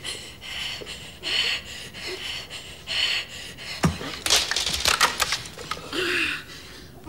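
A person breathing hard in short heavy breaths. About four seconds in comes a sharp knock, then a quick run of clattering knocks, and a short gasp-like vocal sound near the end.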